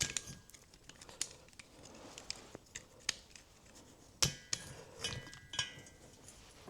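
Small metal clicks and clinks of hand tools working a valve spring compressor on a motorcycle cylinder head to free the valve keepers, with a few sharper metal knocks that ring briefly about four to six seconds in.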